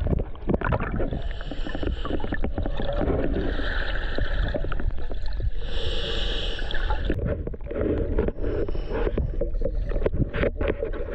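River water splashing and sloshing around divers wading and swimming in a strong current, over a steady low rumble on the microphone.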